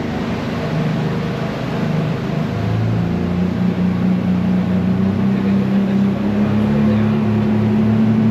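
An engine running steadily at a low pitch, its note creeping slowly upward and growing a little louder.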